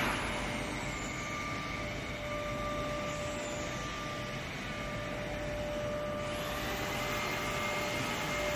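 Laser cutting machine's pallet exchange table running, its pallets sliding along the rails: a steady mechanical hum with a constant whine. A higher whine joins about six seconds in.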